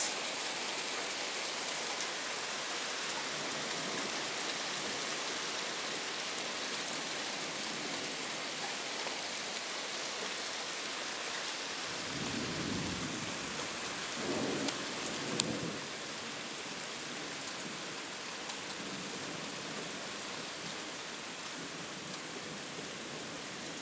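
Steady rain during a thunderstorm, with a short low rumble of thunder about halfway through and a single sharp click just after it.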